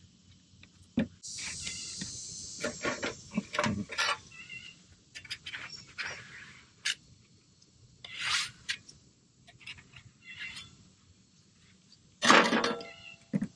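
Putty knives scraping and smearing two-part epoxy fairing compound as it is mixed on a scrap of foam board: irregular scrapes and squeaks, with a louder scrape about twelve seconds in.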